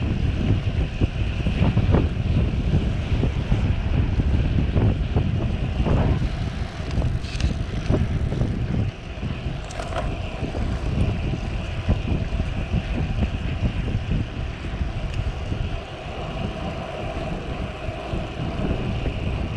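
Wind buffeting the microphone of a camera riding on a moving road bike, a steady low rumble, with tyre and road noise underneath and a few short knocks from bumps in the road.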